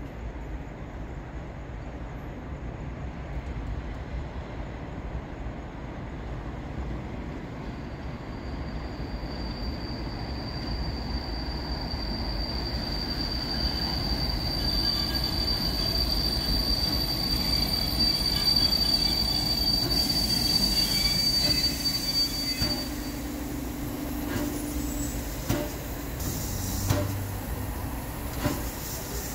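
Steam-hauled passenger train, Pt47 2-8-2 locomotive leading, arriving and braking to a stop. A rumble grows louder as it approaches, and a long steady high-pitched brake squeal sets in about eight seconds in and fades after some fifteen seconds as the train halts. A few knocks follow near the end.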